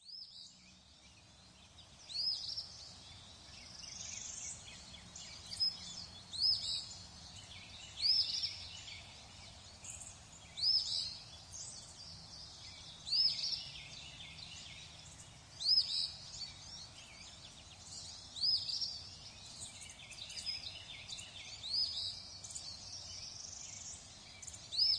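A bird calling over and over, one short high call about every two and a half seconds, over a steady outdoor background hiss.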